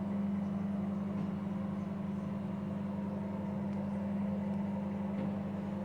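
Steady machine hum with one strong low tone and fainter tones around it, even and unchanging.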